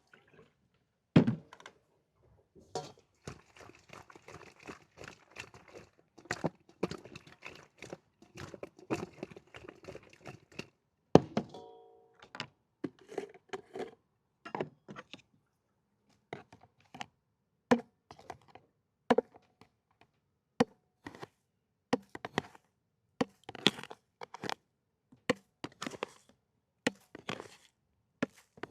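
Food being handled and cut on a board for an ASMR-style recording of mixed mold tofu: irregular knocks and thunks like a knife chopping, with a stretch of dense crackling a few seconds in and a brief ringing tone near the middle.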